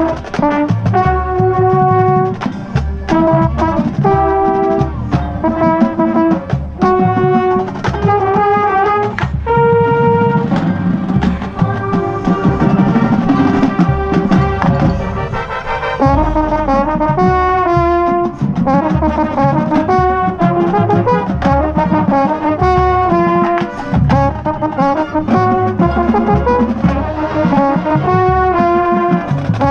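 High school marching band playing its field show: brass chords changing every second or so over drum beats, with the mellophone the camera rides on loud and close.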